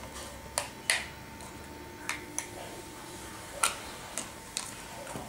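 Scattered small sharp plastic clicks and taps, about seven in all, as a stiff Play-Doh tub lid is pried off and the tub handled.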